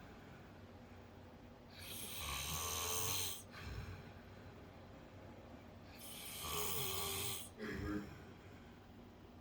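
A man snoring in his sleep: two long snores about four seconds apart, each a low buzz with a hiss of breath, and a shorter breath sound just after the second. The narrator puts the snoring down to nasal congestion or possibly swollen polyps in a nostril.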